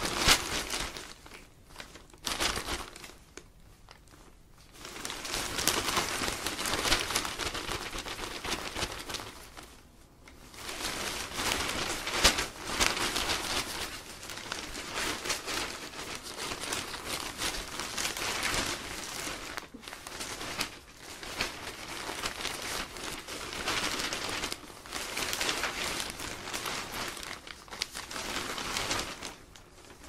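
Newspaper pages being handled and turned: the paper rustles and crinkles in bursts. There is a pause of about two seconds a few seconds in, and short lulls around ten and twenty seconds in.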